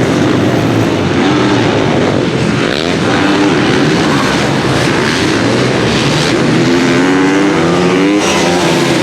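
Several single-cylinder supermoto racing motorcycles at race pace, their engines overlapping and revving up and down through gear changes, with a hard acceleration near the end.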